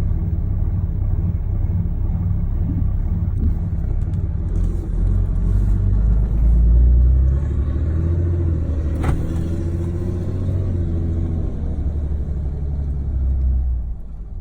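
A 6.7 Cummins inline-six turbo-diesel running rough at low speed with an uneven, cam-like lope that shakes the truck, a sign of the rough-idle fault that appears below about 15–20 mph and clears at higher speeds. It grows louder about six seconds in and drops off near the end.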